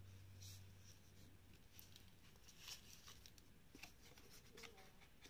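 Faint clicks and rustling of a metal link-bracelet wristwatch and its box being handled, over a low steady hum that fades about a second in.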